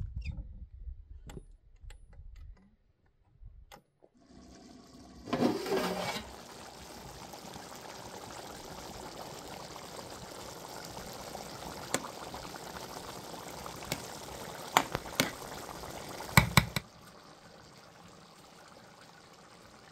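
Footsteps and low thuds at first. Then a steady hiss from a pot of rice over the fire, with a metal slotted skimmer stirring the Kabuli pulao and a few sharp clinks of the skimmer against the pot. The hiss drops lower near the end.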